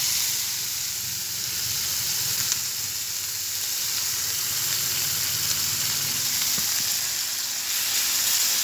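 Shrimp paste (bagoong alamang) sizzling steadily in a hot wok as vinegar is poured in from a packet.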